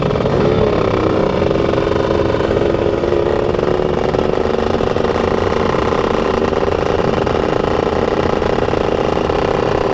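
Motorcycle engine running steadily at an almost constant pitch while riding, with a slight pitch wobble about half a second in.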